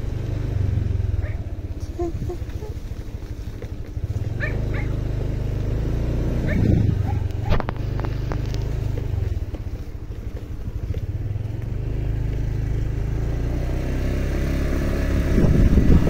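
Small motorcycle engine running steadily under way, heard from the bike itself; the engine sound eases a little past the middle and picks up again near the end.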